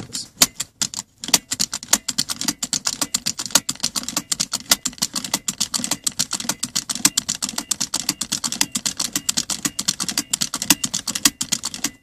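Seat belt latch plate snapped in and out of its buckle over and over, a fast run of sharp plastic-and-metal clicks with a brief pause about a second in. The belt is being buckled and unbuckled about 20 times in quick succession to switch off the seat belt warning chime.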